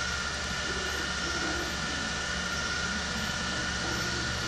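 Steady background hum and hiss with a faint constant high whine: room noise from the recording setup.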